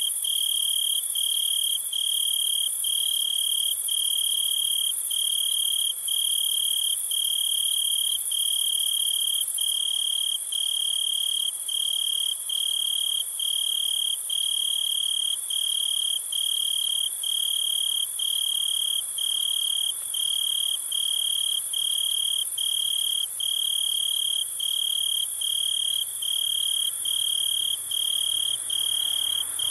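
Insects chirping: a high chirp repeats at an even rhythm, about one and a half times a second, over a continuous high-pitched buzz.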